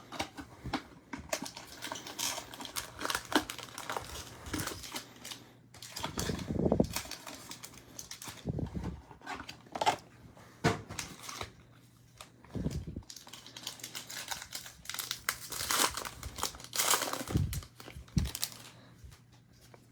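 Foil trading-card pack wrappers being torn open and crinkled, with cards being handled and a few soft thumps.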